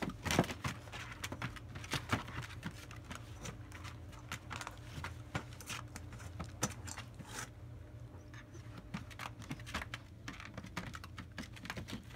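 German Shepherd puppies playing in a hard plastic kiddie pool: a busy, irregular patter of claws clicking and scratching on the plastic as they scramble and tug at toys, over a low steady hum.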